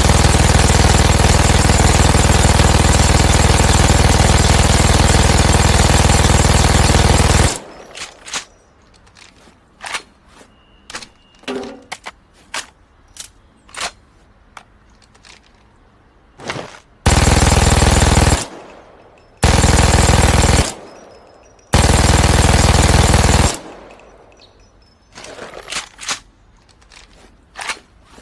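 MG-42 machine gun firing, its shots running together into one continuous sound: a long burst of about seven and a half seconds, then three shorter bursts of a second or so each. Between the bursts come scattered sharp clicks and clacks.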